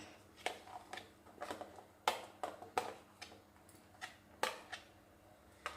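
Chopped vegetables being added into a pressure cooker: about nine light, irregular taps and clicks of food and utensil against the pot.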